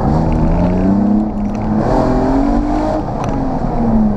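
BMW E36 328i's 2.8-litre straight-six, heard from inside the cabin, pulling hard with its pitch rising. About two seconds in the note breaks off briefly, then climbs again. Steady road and wind rumble runs underneath.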